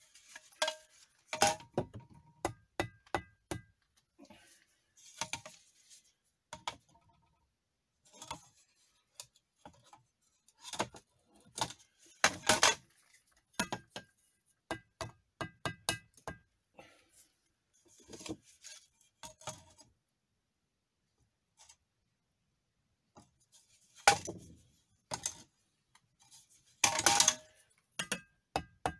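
Bricklaying with a steel trowel and old cored bricks: irregular sharp taps and metallic clinks as the trowel strikes and settles the bricks, with a few longer scrapes of the trowel through mortar, the loudest about twelve seconds in and again near the end.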